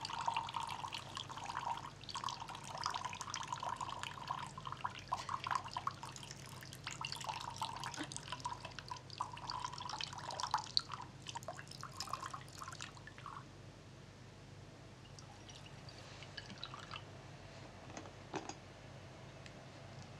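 Coffee poured from a glass French press into a mug: one long, unbroken pour that lasts about thirteen seconds before it stops.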